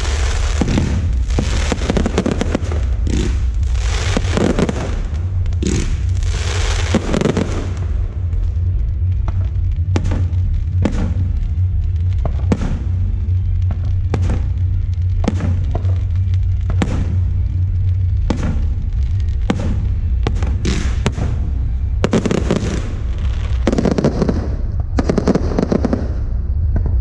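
Aerial fireworks shells bursting in rapid succession, a dense run of sharp cracks and booms over a steady low rumble.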